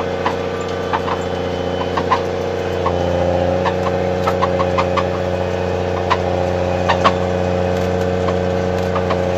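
Snowcat engine running steadily, with scattered light clicks and knocks over the drone. The engine picks up slightly about three seconds in.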